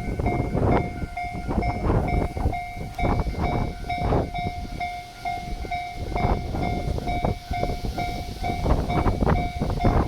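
Japanese railway level crossing warning bell ringing, a pitched electronic ding repeated at an even, quick rate, with strong wind buffeting the microphone underneath.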